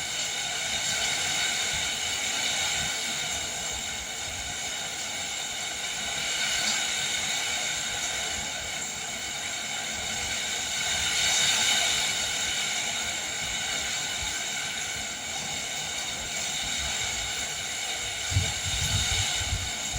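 Rain falling with wind, a steady hiss that swells about halfway through, with a brief low rumble near the end.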